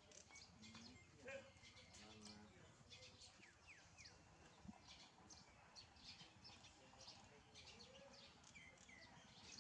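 Faint chirping of small birds: many short, high calls, with a few quick falling notes.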